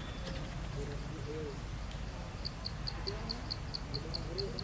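Animal calls: several short, soft, low hoots that rise and fall in pitch, with a quick run of high chirps, about four a second, from about halfway in.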